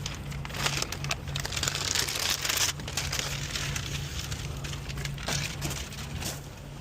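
Irregular crinkling and crackling of material being handled, over a steady low hum.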